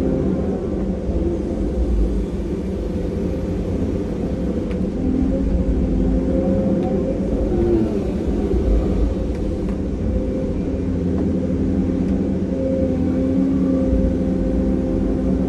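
Cat 340 excavator's diesel engine running steadily under load, a deep rumble with a steady hum over it that shifts slightly in pitch now and then.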